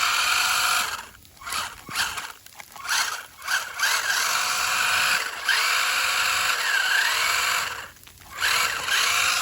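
Electric motor and drivetrain of an RC truck whining in short throttle bursts, then a longer run with the pitch wavering, cutting out about eight seconds in and starting again. The truck is bogged down in snow with its tires digging, and its battery is starting to go.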